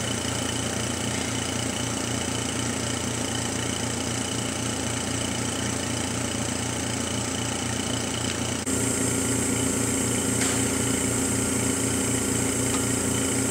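Steady hum of running lab equipment: cooling fans with an electrical hum underneath, from the mask aligner's lamp power supply. It grows louder about nine seconds in.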